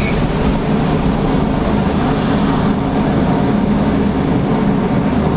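Aircraft engine noise, a steady loud rumble.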